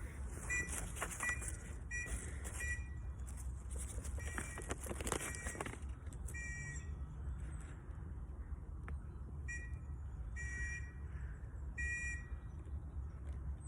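A whistle blown in a series of short and long blasts, spelling out a Morse code message as dots and dashes. A steady low rumble runs underneath.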